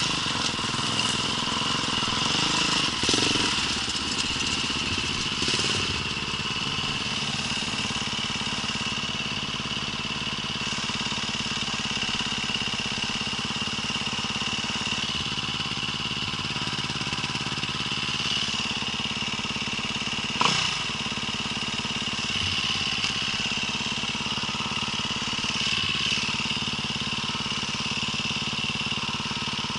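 Motorcycle engine running steadily on a trail ride, with one sharp knock about two-thirds of the way through.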